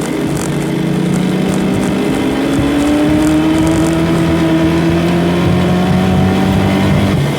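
Ford Mustang engine pulling hard under full throttle, its pitch climbing steadily as revs build, then dropping just before the end as the throttle comes off.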